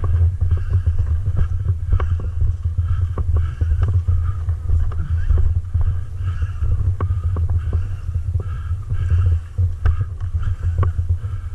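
Loud, continuous low rumble on the microphone, broken by scattered sharp clicks.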